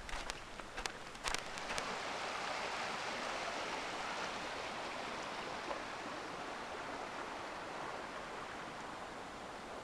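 A few footsteps crunching on wet snow, then a steady rush of snowmelt water running across the road between slabs of slushy snow and ice.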